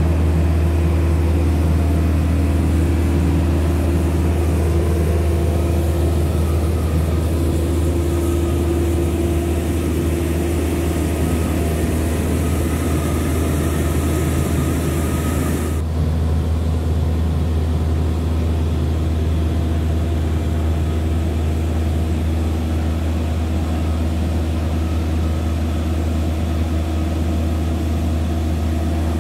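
Lechmotoren mobile ground power generator running steadily with a loud, low, even hum. About halfway through, a higher hiss drops out abruptly while the low hum carries on.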